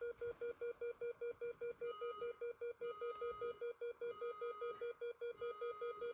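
House fire alarm system sounding its alarm after a smoke detector was set off with test smoke: a low tone pulsing rapidly, about five pulses a second, with a higher beep recurring roughly once a second.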